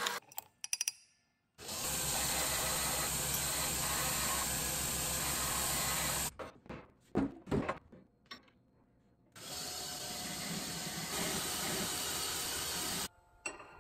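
A 2x72 belt grinder running while a small steel piece is ground against the belt, in two passes of about four seconds each. Between the passes come a few knocks as the piece is handled, and the grinding cuts off sharply near the end.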